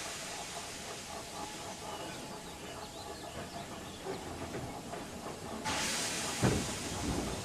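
Steam locomotive releasing steam in a steady hiss, with a louder gush of steam starting a little before six seconds in and a low thump just after it.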